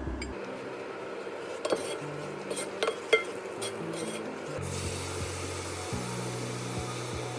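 Cooking utensil stirring and scraping in a pan or bowl, with a few sharp clinks against it in the first half.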